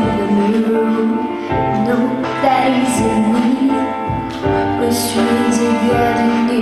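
Slow pop song backing with sustained keyboard-like chords and a drum hit about every one and a half seconds.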